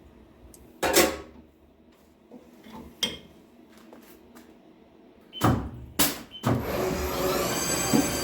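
A few sharp knocks and clunks of handling, then a small CNC lathe's spindle starting about six and a half seconds in: its whine rises in pitch and settles into a steady run.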